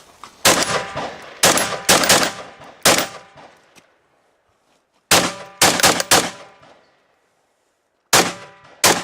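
Rifle shots fired in quick strings: four shots, a pause of about two seconds, four more, then two near the end, each a sharp crack with a short ringing tail.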